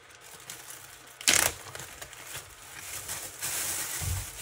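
Plastic bags crinkling as they are handled and pulled open: one sharp, loud crinkle just over a second in, then steadier crinkling that grows louder near the end.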